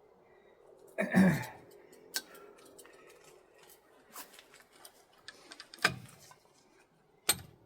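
Small pieces of scrap metal clicking and tapping as they are handled and dropped one at a time, a few sharp knocks spread out. About a second in there is a short vocal sound from the person, like a throat clear.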